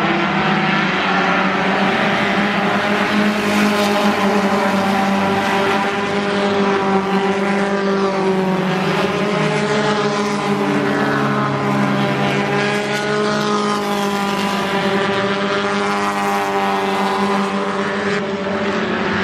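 A pack of four-cylinder race cars running laps on an oval track. Several engines sound together, their pitch rising and falling, and the sound swells several times as cars pass nearer.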